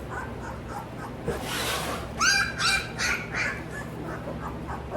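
Young Goldendoodle puppies whimpering and yipping in a cluster of short, high cries about two seconds in, with fainter cries near the end. A brief rustling hiss comes just before the cries.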